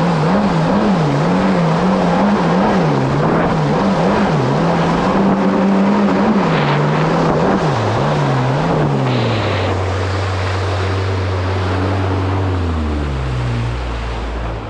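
A Kawasaki SX-R 1500 stand-up jet ski's inline-four engine running under throttle, its revs wavering up and down about twice a second, over the hiss of water under the hull. About ten seconds in the throttle comes off and the engine drops to a low steady idle, stepping lower again near the end as the ski slows.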